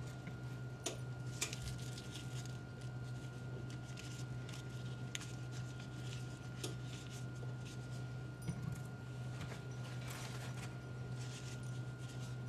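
Soft, scattered clicks and rustles as gloved fingers separate red onion rings and drop them onto a pizza, over a steady low hum.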